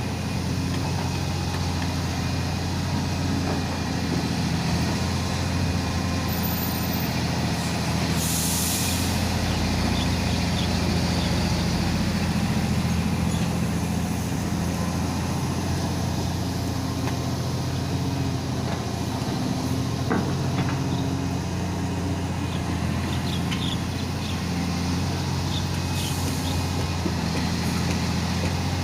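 Diesel engine of a Komatsu hydraulic excavator running steadily under load while loading earth into a dump truck, with a brief hiss about a third of the way in and a fainter one near the end, and a few light knocks in between.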